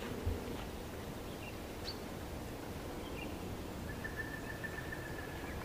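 Quiet forest ambience with faint, sparse bird calls: a few short chirps and a thin steady whistle for about a second and a half near the end. A single low thump comes just after the start.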